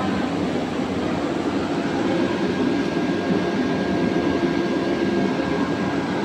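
Steady rumble and hum of trains at a railway platform, with a thin, steady high whine coming in about two seconds in.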